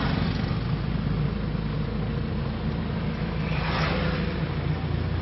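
A motor vehicle's engine running at a steady, even hum, with a brief swell of rushing noise a little under four seconds in.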